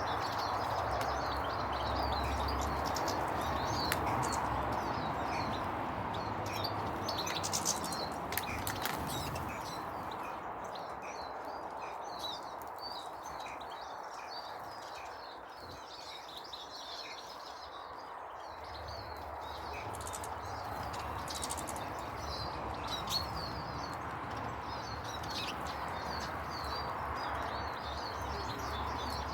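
Small birds chirping and twittering, with many short high calls overlapping throughout, over a steady background noise.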